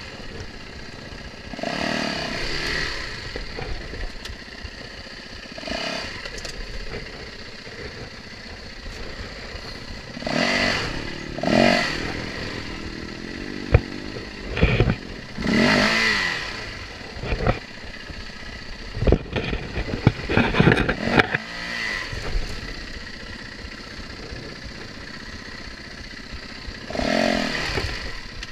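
Yamaha WR450F's single-cylinder four-stroke engine idling and revved in short blips, several times, as the dirt bike is picked through rocks. In the middle come a cluster of sharp knocks and clatter, the bike striking rock.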